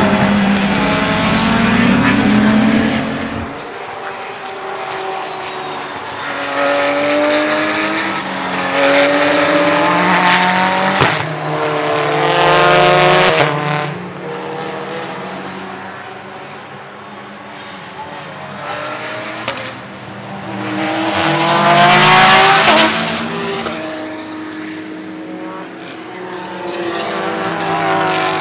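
Race cars, among them a SEAT Leon TCR touring car, passing one after another at racing speed. Their engines rise in pitch through upshifts and fall away as each goes by, with the loudest passes about halfway through and again about three quarters in.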